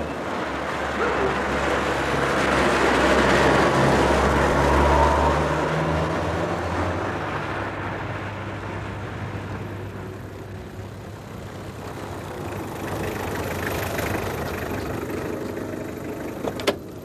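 A car driving along a street: engine and tyre noise swell as it approaches and fade, then rise again as it pulls up. A few sharp clicks come near the end.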